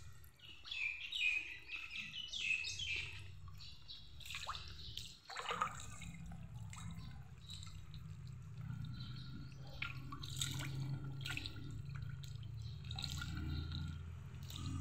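Fish splashing at the surface of a pond, a few sharp drip-like splashes among softer water sounds, with birds chirping in quick runs during the first few seconds. A low steady rumble sits underneath.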